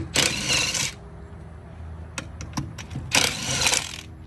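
Handheld portable air compressor (tire inflator) at a car's wheel valve, with a steady low motor hum and two loud bursts of hissing air about a second long, one at the start and one about three seconds in, plus a few light clicks.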